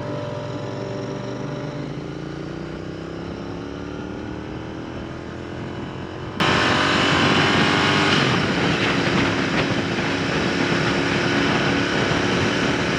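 Royal Enfield Interceptor 650's parallel-twin engine running on the move, its pitch rising slowly as the bike gathers speed. About six seconds in the sound suddenly gets louder, with a rush of wind and road noise over the engine.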